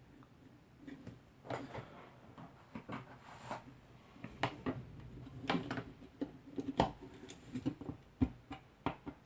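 Hands working Cat6 cable wires into a patch panel: irregular small clicks, taps and rustles, with a sharper knock about seven seconds in and another about a second later.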